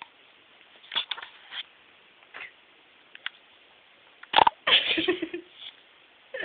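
Short bursts of scuffling and rubbing as fur brushes against the microphone while a cat is handled up close, with a loud bump about four and a half seconds in and a second or so of rough scraping after it.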